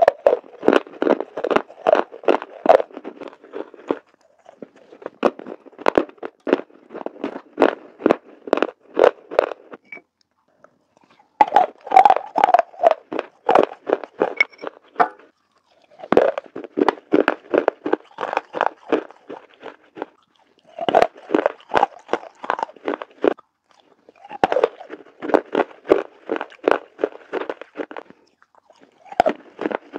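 Pieces of water-soaked Mexican clay pot being chewed close to a clip-on microphone: sharp crunches, about three a second, in runs of a few seconds with short pauses between.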